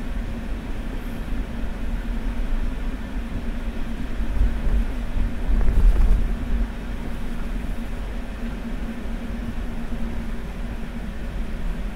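Car driving on rain-wet roads: steady low engine and road rumble with tyre hiss, getting louder briefly about four and six seconds in.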